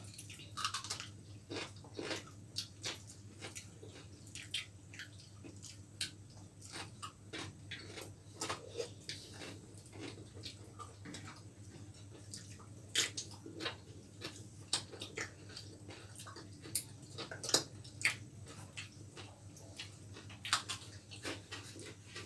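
People eating by hand: scattered chewing and mouth clicks, with roti being torn and light touches on the plates, over a faint steady low hum.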